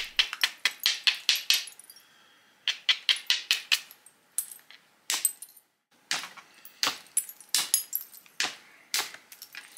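Sharp stone-on-stone clicks as a hammerstone is tapped and rubbed against the edge of a chert blank. Quick runs of clicks in the first few seconds give way to single clicks about a second apart.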